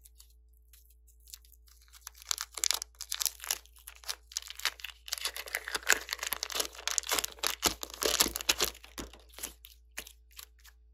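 Soft green clay being squeezed, stretched and pulled apart by hand. It gives a dense run of sticky crackles and small pops that starts about two seconds in and thins out near the end.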